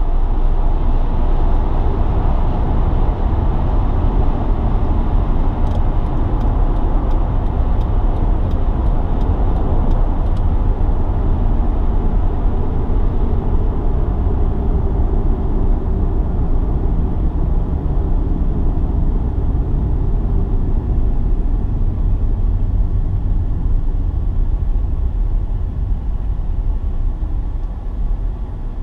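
Steady road and tyre rumble with engine noise, heard inside a Honda Accord's cabin while driving. It eases off near the end as the car slows for traffic.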